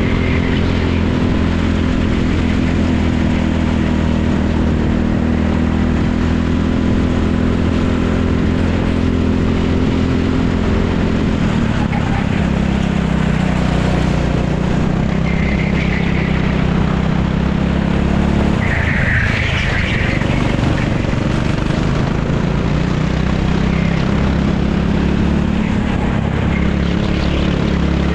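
Racing kart engine heard from onboard while lapping a circuit under load. Its pitch falls twice, near the middle and again about two-thirds of the way through, as the kart slows for corners, then climbs again as it accelerates out.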